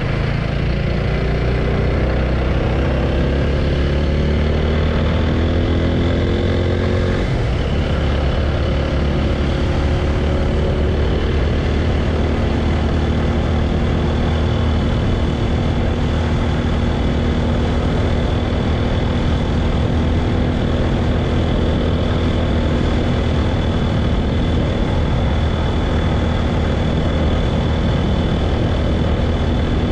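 Motorcycle engine running under way, pitch climbing for about seven seconds, then dropping sharply and holding steady.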